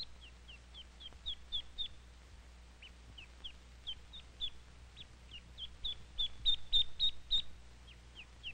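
Hatching duckling peeping: a steady run of short, high peeps, each sliding down in pitch, several a second, louder for a stretch in the second half.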